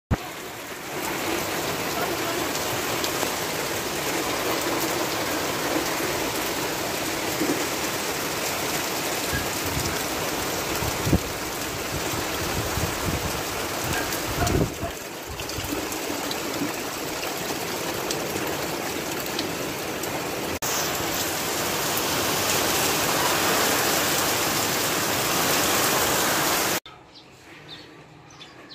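Super Typhoon Odette's wind and driving rain: a loud, steady rush of noise, with a couple of brief low thumps partway through. It cuts off sharply near the end, leaving much quieter outdoor sound.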